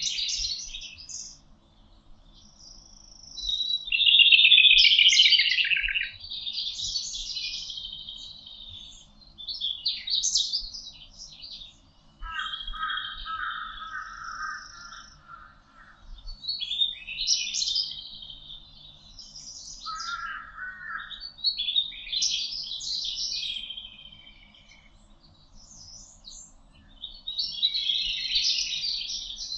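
Several songbirds singing in turn in a forest chorus, one varied phrase after another with short pauses between. The loudest is a falling trill about four seconds in. Lower phrases of quick repeated notes come around twelve and twenty seconds.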